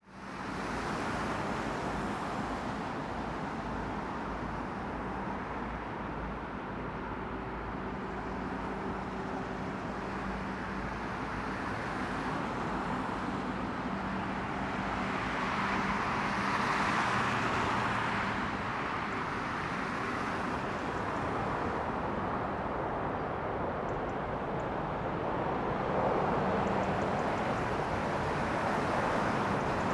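Airbus A380-841's Rolls-Royce Trent 900 engines on approach: steady jet engine noise that swells about halfway through.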